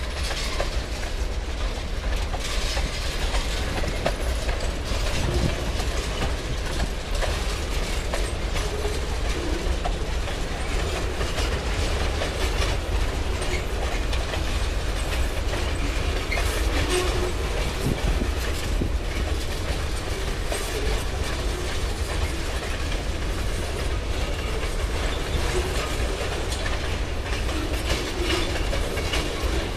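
A freight train's cars rolling past close by, tank cars and then boxcars: a steady rumble of steel wheels on rail with scattered clicks as the wheels cross the rail joints.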